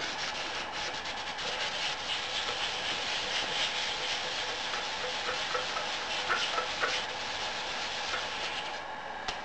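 Wet sanding of formed plastic with 800-grit sandpaper: a steady rubbing scrape with a few faint squeaks past the middle, stopping shortly before the end.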